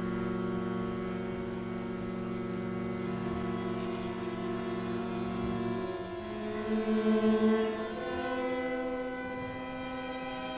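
Contemporary chamber music for flute, oboe, violin and cello: the instruments hold long sustained notes. About six seconds in the chord changes, and one note swells and pulses loudly for about a second before a new held chord settles in.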